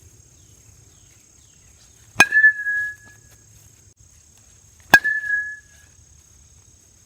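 Marucci Cat 9 Connect aluminum-barrel bat hitting a baseball twice, about three seconds apart: each hit is a sharp crack followed by a ringing metallic ping that fades within a second.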